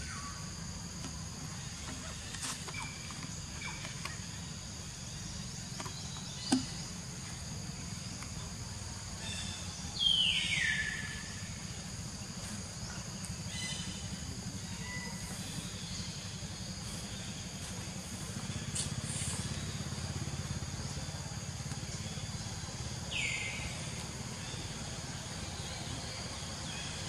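Outdoor ambience of a steady high insect drone, with two short high calls falling in pitch, a loud one about ten seconds in and a fainter one near the end.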